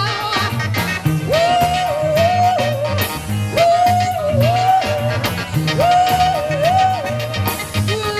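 A band playing a funk song. A lead line of held notes that bend at their ends repeats in short phrases over bass and drums.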